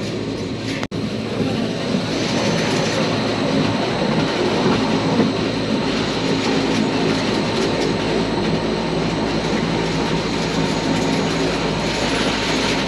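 Rigi rack-railway train running on its steep climb, a steady rolling rumble and motor hum heard from on board. The sound briefly cuts out about a second in.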